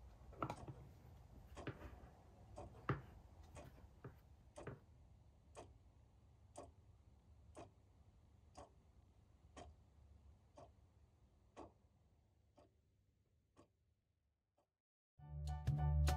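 Faint clicks and clacks of a clear plastic stamp-storage box being handled and opened. Then a clock ticking steadily, about once a second. Music starts about a second before the end.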